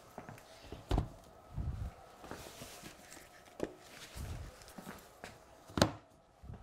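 Hardback books set down in stacks on a wooden model railway baseboard, weighting freshly glued track: a knock about a second in and a louder one near the end, with soft footsteps and shuffling between.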